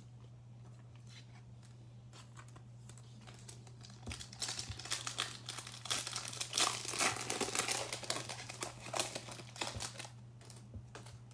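Plastic wrapper of a Donruss basketball card pack being torn open and crinkled by hand: a dense crackling that starts about four seconds in and lasts until near the end, after a few faint handling clicks.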